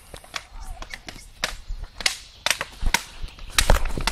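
Toy swords clacking against each other in a mock sword fight: a string of sharp, irregular strikes, about eight, bunching up and loudest near the end.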